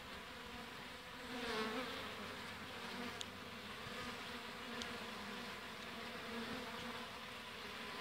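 Honeybees buzzing at a hive entrance as workers fly in and out, a faint steady hum. The hum is briefly louder about a second and a half in.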